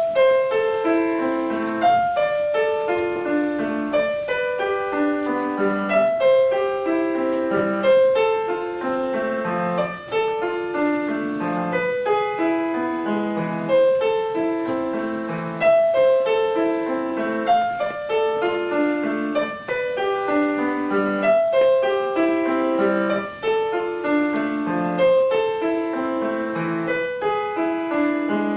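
Grand piano played solo by a young child: short phrases of notes stepping downward, repeated about every two seconds.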